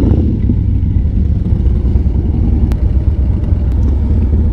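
Harley-Davidson Road Glide's V-twin engine idling, a loud, uneven low rumble close to the microphone, with other motorcycles idling alongside.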